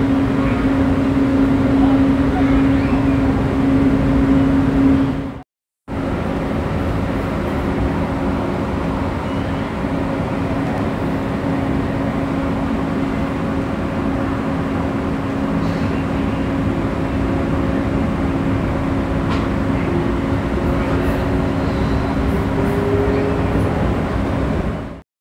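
Metro train heard from inside the carriage while running on elevated track: a steady running noise with a constant low hum. The sound cuts out completely for a split second about five seconds in, and a faint tone rises in pitch near the end.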